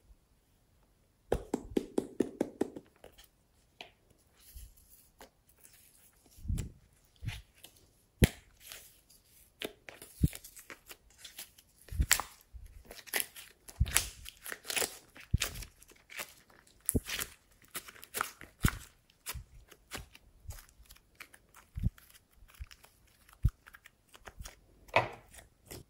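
Soft slime being squeezed, pulled and twisted by hand. It gives irregular sticky crackles and small pops, starting about a second in.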